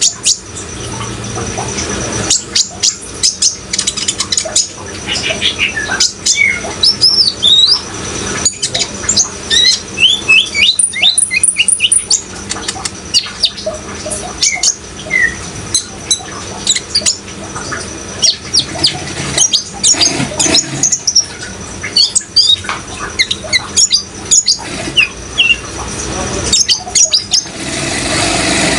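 A sunbird (the kolibri ninja of Indonesian bird keepers) calling in a fast series of short, high, sharp chirps and twitters, over a steady hiss of running water.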